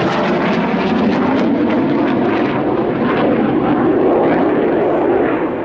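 A Panavia Tornado's two RB199 turbofan engines in flight: loud, rough jet noise with a crackle, growing duller near the end.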